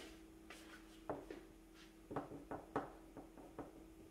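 Faint, scattered light clicks and knocks of cables and computer gear being handled on a table, over a steady faint hum.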